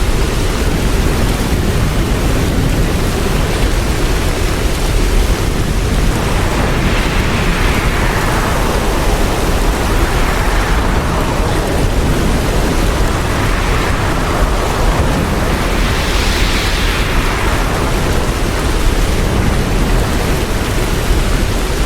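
Hurricane wind and heavy rain: a loud, steady rush with rumbling wind on the microphone, and four gusts swelling and fading in the second half.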